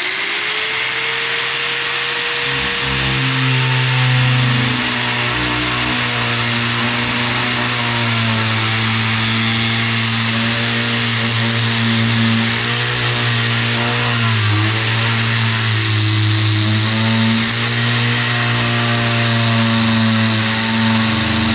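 Ridgid R10202 7-inch, 15-amp corded angle grinder spinning up, then running steadily as its cutoff wheel cuts into a clamped piece of wood; crazy loud. The motor's pitch sags briefly about two thirds of the way through.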